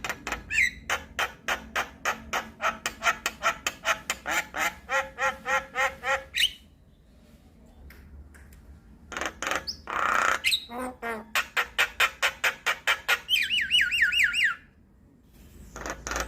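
Javan myna calling: a long fast run of sharp repeated notes, about five a second, lasting about six seconds. After a pause come harsh squawks, another quick run of notes, and a rapid warbling trill near the end.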